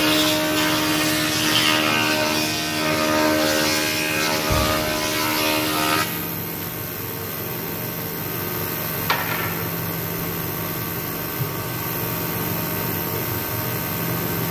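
Spindle moulder (wood shaper) cutting a profile along a wooden board as it is fed past the cutter, with a single knock partway through. About six seconds in the cutting stops suddenly and the machine runs on unloaded with a steady hum, with a click a few seconds later.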